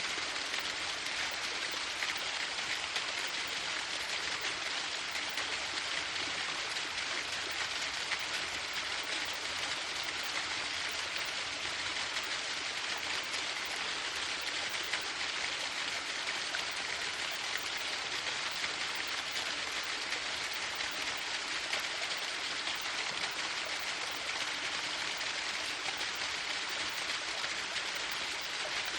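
Waterfall: water falling and splashing in a steady, even rush that does not change.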